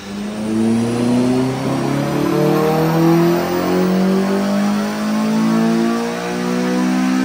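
Honda Civic Type R FN2's K20 four-cylinder engine running on a chassis dyno, its engine note climbing slowly in pitch, dipping, and climbing again as the revs rise.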